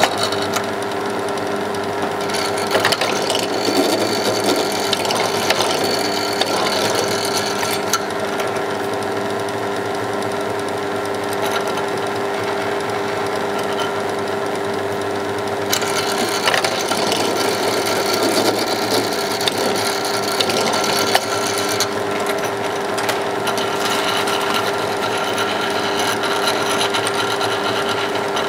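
A running motor hums steadily in the workshop. Small clicks and rattles of the work being handled in a drill-press vise come a few seconds in and again past the middle.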